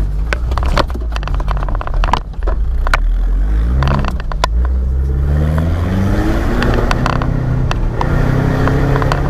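Off-road 4x4 engine revving up and falling back again and again, with sharp knocks and clatter as the vehicle works over rough ground.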